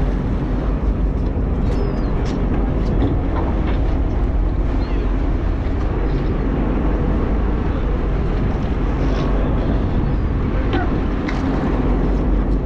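Charter fishing boat's engine running steadily, a deep even rumble under the deck.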